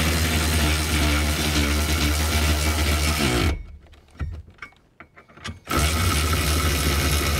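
A cordless power tool with a 13 mm socket running down the seat-bracket bolts in two runs of about three seconds each. Its pitch drops just before the first run stops as the bolt seats.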